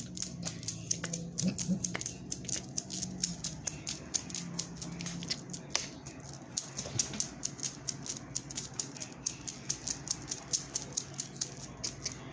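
Clock ticking steadily, several ticks a second, over a low hum that fades out about five seconds in.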